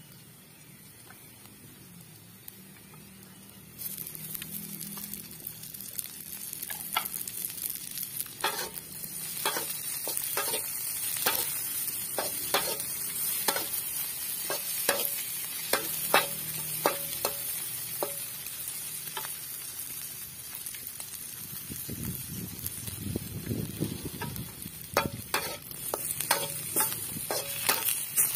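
Chopped shallots and chilies sizzling in a metal wok while a metal spatula stirs them, scraping and tapping against the pan. The sizzle comes in suddenly about four seconds in, and the spatula strokes keep coming at irregular intervals.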